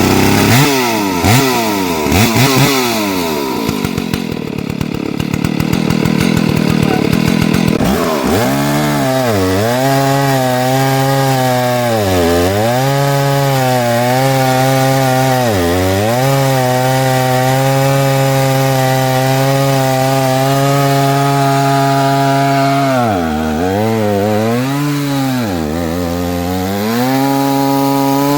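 Stihl chainsaw on an Alaskan chainsaw mill, just started: revved up and down for about eight seconds, then held at high speed as the chain rips lengthwise through the log. Its engine speed dips briefly several times as the cut loads it.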